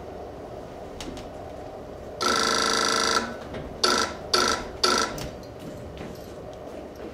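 Electric buzzer sounding as a stage signal: one long ring of about a second, then three short rings in quick succession, calling someone to answer.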